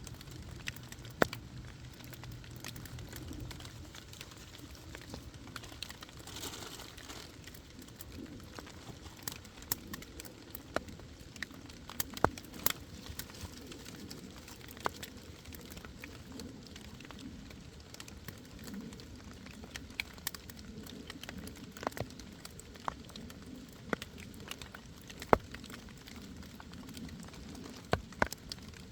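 Wood campfire crackling, with sharp pops at irregular intervals over a steady hiss.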